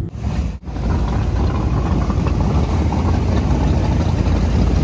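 Motorboat under way: a steady engine drone mixed with rushing wind and water noise. The sound cuts out briefly twice in the first second.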